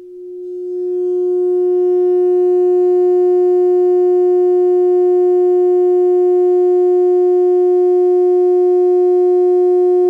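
A steady test tone of about 360 Hz (60 Hz at model scale) played through a tiny 3D-printed ported mini-subwoofer in a sealed test cabin, with a row of fainter higher overtones above it. It swells in level over the first couple of seconds and then holds at about 127 dB.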